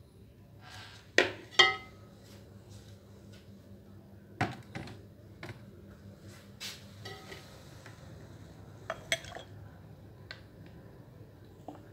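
Metal spoon and glass tumblers clinking against an aluminium pot while lassi is ladled into glasses: two loud ringing clinks about a second in, then scattered lighter clinks and knocks.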